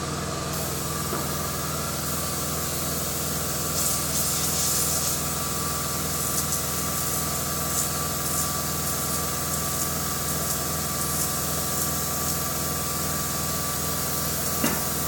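Air-powered gravity-feed paint spray gun hissing in repeated bursts as the trigger is pulled, spraying lacquer through a clogged nozzle to clear it. A steady low machine hum runs underneath, and a sharp click comes near the end.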